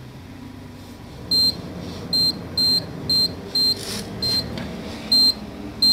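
Keypad beeps of a Precia Molen weighing indicator as its keys are pressed: eight short, high-pitched beeps at uneven intervals, starting about a second and a half in. The keys step through the indicator's menus toward scale calibration.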